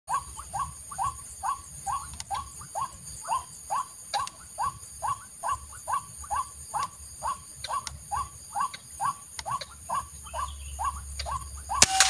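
White-breasted waterhen calling: one short, hooked note repeated evenly a little over twice a second, with a sharp crack just at the end.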